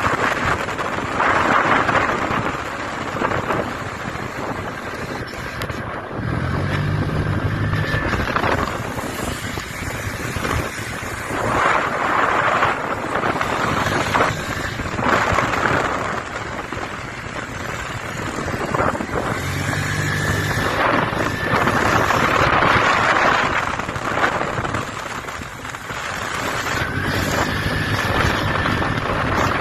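Wind buffeting the microphone while riding a motorcycle, over the running engine and road noise, rising and falling in gusts. A low, steady hum comes in briefly three times.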